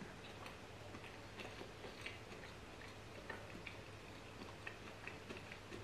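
Faint chewing with the mouth closed on a last mouthful of fried donair dipper: soft, irregular little clicks and smacks over a low steady hum.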